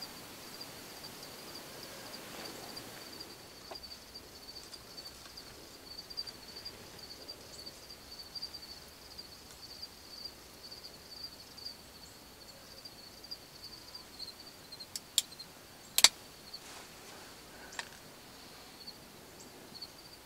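Insects chirring steadily in a fine, high-pitched pulse. A few sharp clicks come near the end, the loudest about three-quarters of the way through.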